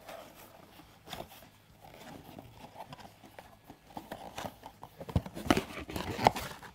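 A small cardboard blind box being opened by hand: faint rustling and scraping of the card and the packet inside, then a quick run of sharp taps and clicks about five seconds in.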